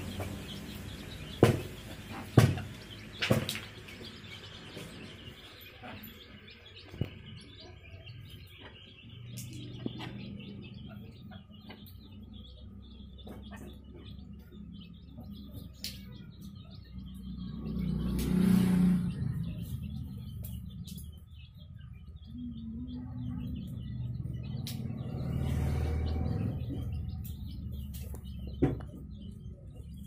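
Domestic chicks peeping, in short high chirps scattered throughout. A few sharp knocks sound in the first few seconds, and two low rumbling swells come around the middle and later.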